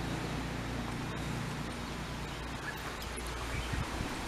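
Steady outdoor background noise with a low rumble, and a few low thumps near the end.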